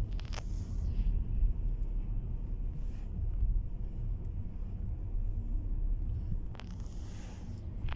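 Car interior road noise while driving: a steady low rumble, with a short hiss just after the start and a longer hiss near the end.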